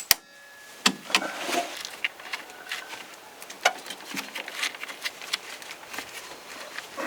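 Irregular clicks and knocks of a hand tool working on a battery's terminal bolts as the old battery is unscrewed, with one sharp click at the start.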